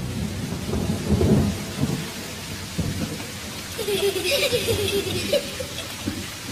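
Running water in a shallow stream, splashing irregularly as a long-handled tool is worked in the stream bed, over a low rumble. About four seconds in there is a brief wavering call.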